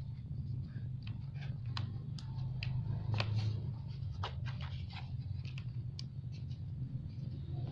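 Small drone motors switched on and running with a steady low hum, with irregular clicks and scratches over it, which the builder puts down to the wire knocking against the body.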